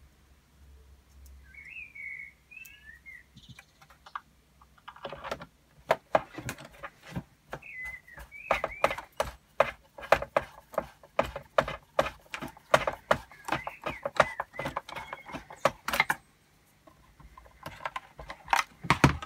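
A screwdriver working screws into a droid's foot drive housing: a quick run of sharp clicks and taps, about three or four a second. It starts about five seconds in and stops shortly before the end.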